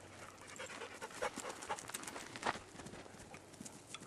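A dog panting in short, uneven breaths, a few of them louder.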